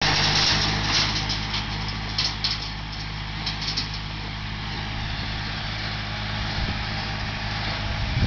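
International tractor's engine running steadily while pulling a rotary brush cutter (brush hog) through brush, with short bursts of high hissing noise in the first few seconds.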